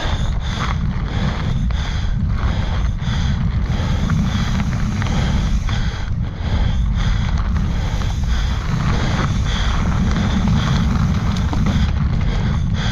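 Wind buffeting the microphone of a camera on a moving mountain bike, a steady heavy rumble, with tyre noise on dirt and frequent irregular knocks and rattles from the Yeti SB140LR full-suspension bike going over rough trail.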